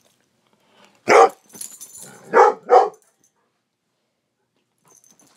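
Dog barking during play: one bark about a second in, then two quick barks close together.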